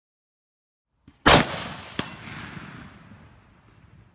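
A single shot from a high-powered scoped bolt-action hunting rifle: one sharp report about a second in, with a long fading echo, and a second short crack about three-quarters of a second after it.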